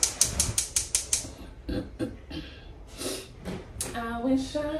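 A quick run of about eight sharp clicks in the first second, then a few scattered knocks. Near the end a woman starts singing.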